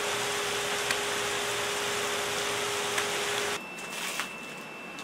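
Steady rushing noise with a low hum and two light clicks. About three and a half seconds in it cuts off abruptly, leaving a quieter background with a steady high whine and a few faint ticks.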